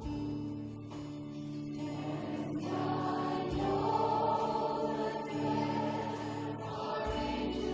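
Worship song: singing voices over sustained instrumental chords and a steady bass.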